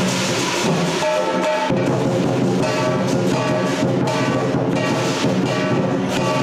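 Lion dance percussion: a Chinese drum struck continuously together with clashing cymbals and a ringing gong.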